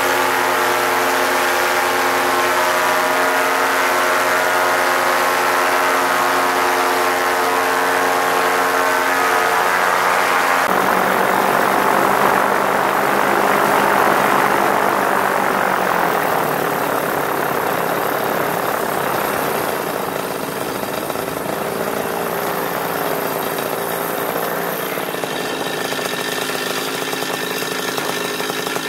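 Paramotor engine and propeller running steadily under power through a touch-and-go. About ten seconds in the engine note changes abruptly and turns rougher and noisier for several seconds, then settles back to a steady drone near the end.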